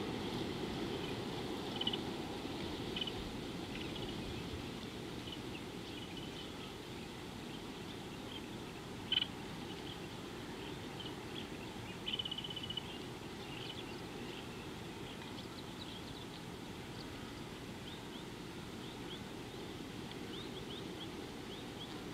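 Outdoor riverside bush ambience: a steady low background noise with small birds giving scattered short high chirps and a brief trill about twelve seconds in.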